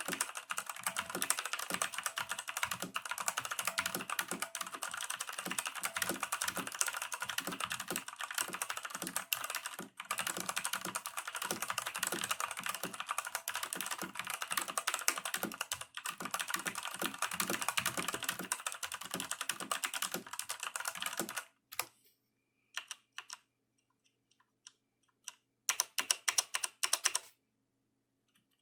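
Redragon Dark Avenger mechanical keyboard with Outemu Brown tactile switches being typed on fast, a dense stream of key clicks. About two-thirds of the way through the typing breaks off into a few scattered keystrokes, then one short flurry near the end.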